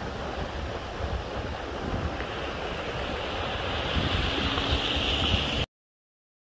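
Rushing flash-flood water with wind buffeting the microphone, as a car drives through the water flowing over the road and the hiss of splashing grows louder as it nears. The sound cuts off suddenly near the end.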